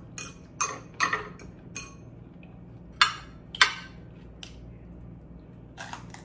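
Metal fork clinking against a glass bowl and plate: several light taps in the first two seconds, then two sharp, louder clinks about half a second apart near the middle, then a few fainter ones.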